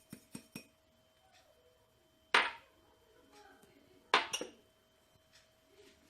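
Kitchen dishware knocking. A few light clicks come at the start, then two sharp clinks about two seconds apart, the second a quick double knock.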